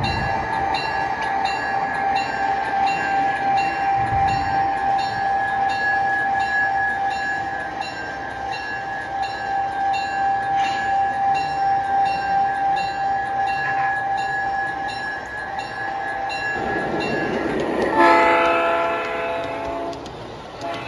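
G scale model trains running, with a steady high-pitched whine through most of the clip. About 18 seconds in, a model diesel horn from an onboard sound unit blows for about two seconds, the loudest sound in the clip.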